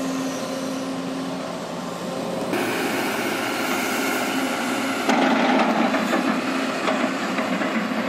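Sumitomo SH210 hydraulic excavator's diesel engine running under working load. It grows louder a few seconds in, and from about halfway through there is a run of sharp knocks and clatter as the machine works the soil.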